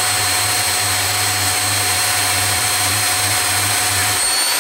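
Milwaukee portable band saw running steadily with a high motor whine, its blade cutting through metal clamped in a vise. The low hum under it drops out about four seconds in.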